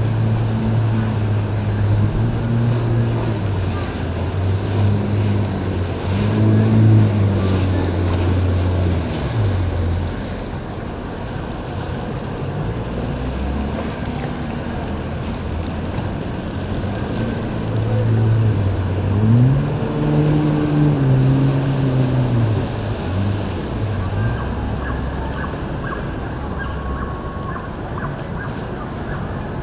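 Yamaha WaveRunner personal watercraft engine running and revving up and down in pitch as it turns, over a steady wash of spray and wind noise.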